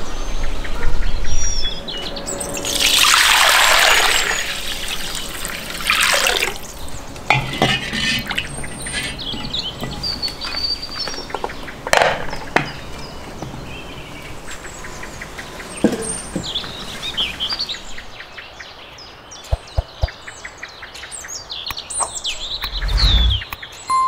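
Outdoor cooking sounds under chirping birdsong: a loud rush of noise about three seconds in, a few shorter rushes after it, and a sharp knock about twelve seconds in as a ceramic dish is set down into a cast-iron cauldron.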